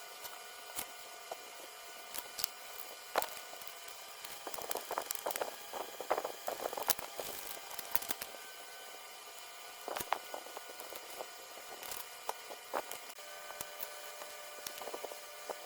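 Small hand tools clicking and scratching on a circuit board, scattered and irregular, busiest around five to seven seconds in, over a faint steady electrical whine.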